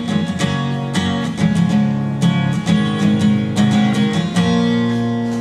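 Acoustic guitar strummed in steady chords, the closing bars of the song after the singing has stopped; a last chord near the end is left ringing.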